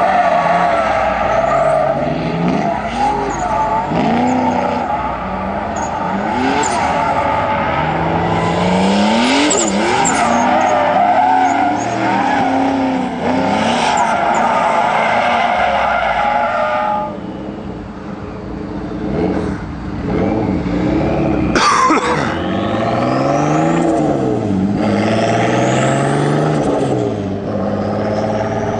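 BMW M3 drifting, its engine revving up and down through the throttle while the tyres squeal continuously for about the first half. The squeal then drops away, leaving the engine rising and falling in pitch, with one sharp crack about two-thirds of the way through.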